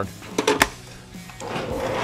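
A few sharp clicks, then about one and a half seconds in the Shopsmith Mark V table saw's motor switches on and spins up, its running noise rising and then holding steady. It is a test run after the loose arbor set screw has been tightened.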